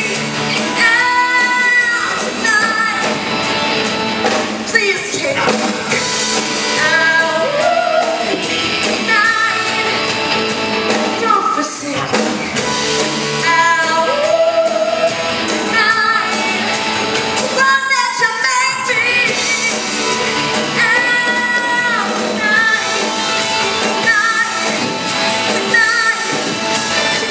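A woman singing an up-tempo rock musical-theatre number over full rock band accompaniment with drums, repeating short sung phrases.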